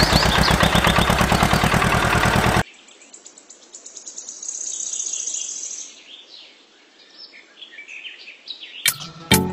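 Background music with a steady beat cuts off suddenly, leaving small birds chirping and a high insect-like trill. The music comes back near the end.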